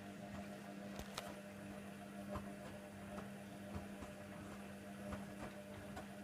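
Hoover Nextra HNWL7146 washer dryer running early in its Cotton 70 + Prewash cycle: a steady motor hum with a few light clicks and taps.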